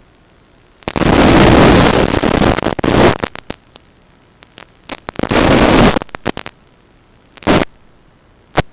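Loud bursts of rushing static: one lasting about two seconds starting a second in, another of about a second midway, then two short bursts near the end, with faint steady hiss between. This is radio static in the analog FPV goggles' recording.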